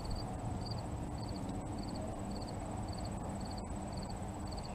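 Crickets chirping: a short chirp of three or four quick pulses repeating about twice a second, with a steady high insect whine behind it, over low wind noise on the microphone.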